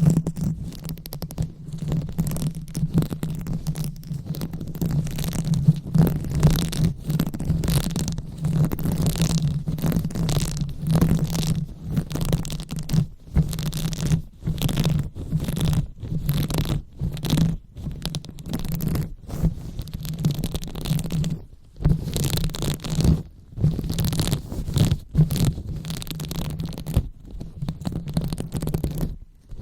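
Close-up rubbing and scratching directly on a microphone, in irregular strokes with short pauses between them, over a steady low hum.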